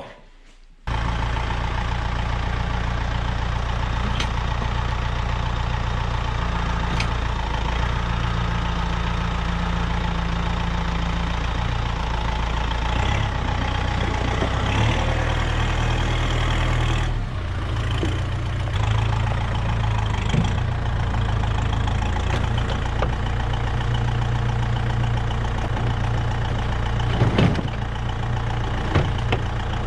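Vehicle engine running steadily, starting abruptly a second in, its low note shifting a few times as it works, with a few short knocks near the end.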